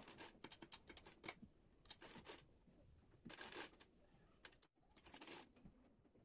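Faint rustling and small clicks of thin fabric being folded into pleats by hand at the needle of a sewing machine, the machine itself not running.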